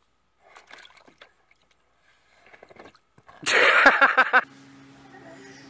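Faint sloshing and splashing of water in a plastic kiddie pool. About three and a half seconds in, a loud, pulsing burst of voice lasts about a second as the toddler tips backward out of the pool. After it a steady low hum carries on to the end.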